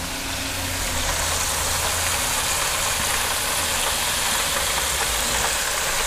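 Breaded bacon slices sizzling steadily in hot oil in an electric deep fryer, a continuous frying hiss over a faint low hum.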